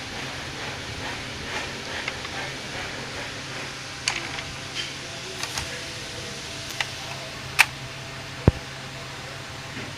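Epson L130 ink-tank inkjet printer running its head-cleaning cycle: a steady low motor hum with scattered clicks and ticks from the mechanism, the loudest click about seven and a half seconds in, followed by a short low thump.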